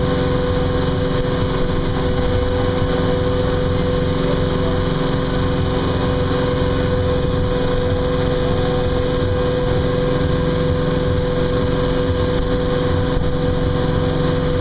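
Motorboat engine running at a steady cruising speed, a constant drone that does not change in pitch, with the churning of the wake behind the boat.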